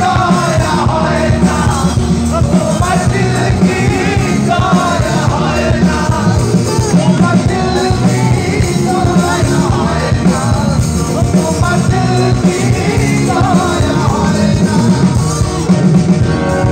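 Live rock band playing through a stage PA: a male singer's voice over drums, electric guitar and keyboard.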